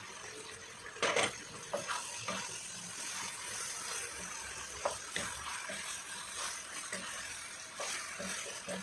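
Chicken and potatoes sizzling in a speckled enamel pan while a wooden spatula stirs and scrapes them, with scattered clacks of the spatula against the pan, the loudest about a second in.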